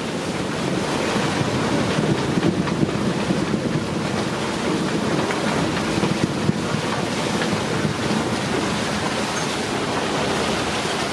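Rough sea rushing and breaking along a sailing yacht's hull in a heavy swell, mixed with strong wind; a loud, steady rush with some wind buffeting on the microphone.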